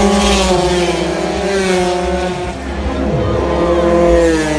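Several 80cc racing scooters running at high revs, their engine notes overlapping, with pitches falling as they pass by.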